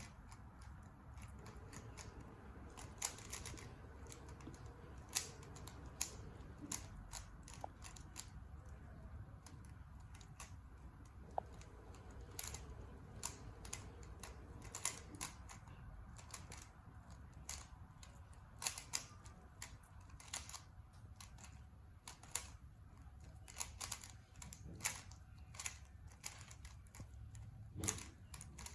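A 3x3x3 Rubik's cube being turned quickly in a speedsolve: irregular clicking and clacking of its plastic layers, with now and then a sharper, louder clack.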